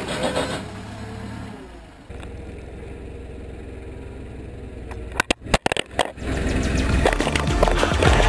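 TCM forklift's engine running steadily, heard close from a camera mounted on the forklift. A few sharp clicks come just after five seconds in, and the running grows louder toward the end.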